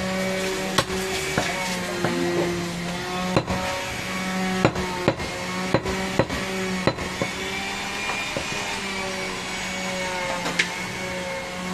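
Cleaver or knife chopping goat meat on a wooden block: sharp knocks at irregular intervals, bunched in the middle, over a steady droning hum.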